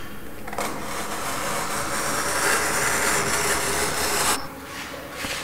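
Snap-off utility knife drawn through a sheet in one long continuous cut, slicing off a strip; the cutting noise starts about half a second in, holds steady for about four seconds and stops suddenly.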